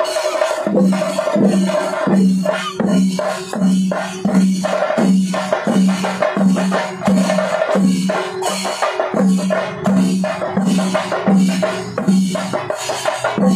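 Music with a steady percussive beat: a low note repeats about twice a second over clicking, rattling percussion.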